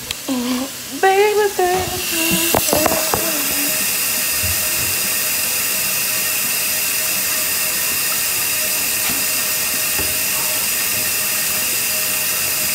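Kitchen faucet running into a stainless steel sink: a steady hiss of water that starts about two seconds in and holds even. It comes just after a few short vocal sounds.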